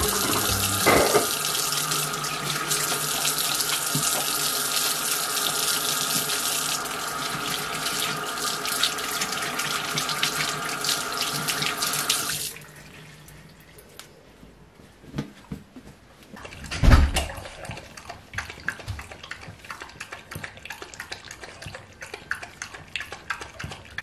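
Bathroom sink tap running, water splashing over hands into the basin, then shut off suddenly about halfway through. Afterwards only faint handling sounds, with one dull thump.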